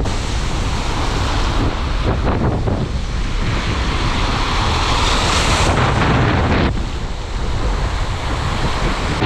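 Ocean surf breaking and washing up the beach, with strong wind buffeting the microphone. A louder hissing rush builds about three and a half seconds in and drops away abruptly near six seconds.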